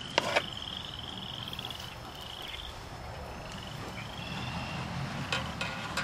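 Frogs calling in a string of short, slightly rising trills, dying away about halfway through. A sharp knock just after the start and a few clicks near the end come from the hive gear being handled.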